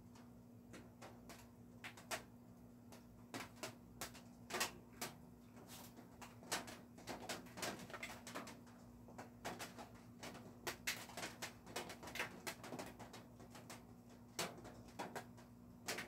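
Raindrops tapping on a roof: irregular sharp ticks, sparse at first and thicker from about six to thirteen seconds in, over a steady low hum.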